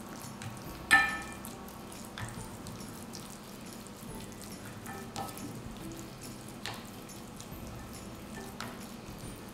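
Silicone spatula stirring thick oat batter in a glass mixing bowl: soft wet squelching with a few light knocks against the bowl, the sharpest a ringing clink about a second in.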